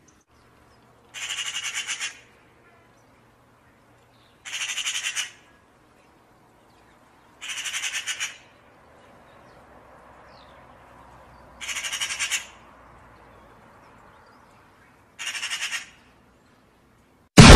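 Eurasian magpie rattling: five bursts of rapid, harsh chattering notes, about three seconds apart. A sudden loud boom breaks in at the very end.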